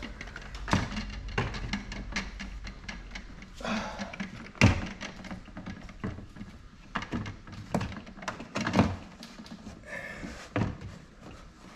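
Thin-shade window frame being pressed and pushed by hand into an RV door's window opening: a string of scattered knocks and clicks, the loudest a little before halfway.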